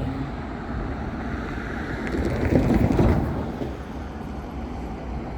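Low, steady rumble of vehicle noise that swells louder about halfway through, then eases off.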